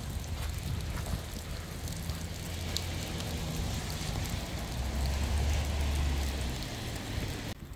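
Heavy rain falling steadily, with wind rumbling on the microphone; the sound drops abruptly near the end.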